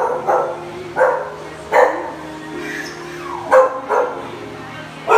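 Dogs in a boarding kennel barking, loud sharp barks coming about every one to two seconds.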